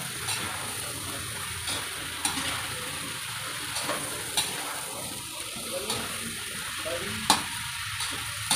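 Squash and string beans sizzling in a large metal wok while a metal ladle stirs them, scraping and clinking against the pan every second or so; the sharpest clink comes about seven seconds in.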